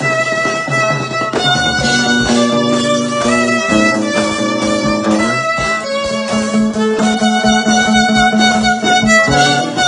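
Instrumental music: a violin plays held notes of a melody over a steady rhythmic accompaniment.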